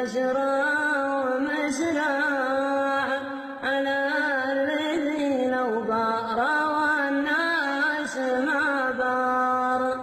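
Arabic chanted vocal music: a voice draws out a wavering, wordless melody over a steady held drone.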